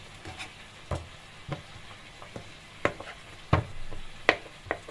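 Kitchen knife dicing soft cheese on a plastic cutting board: irregular sharp taps as the blade strikes the board, coming more often and louder in the second half. A faint sizzle from a frying pan sits underneath.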